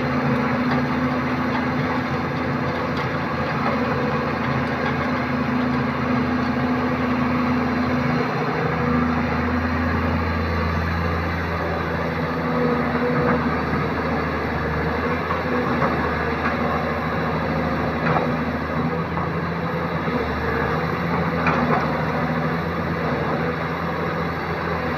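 Kobelco SK200 crawler excavator's diesel engine running steadily as the machine works, its note deepening and strengthening about eight seconds in as it takes on load. A few short knocks come through near the end.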